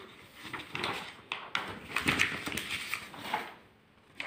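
Paper sheets being handled and turned over, a run of soft rustles and light clicks that drops out briefly near the end.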